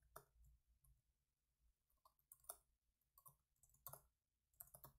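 Faint, irregular keystrokes on a computer keyboard as a short terminal command is typed.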